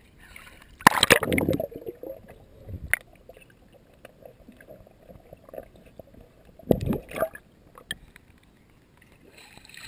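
Swimming-pool water splashing as a waterproof camera goes under the surface, then the muffled, dull sound of being underwater with the highs cut off. A second splash comes about seven seconds in as it breaks the surface again.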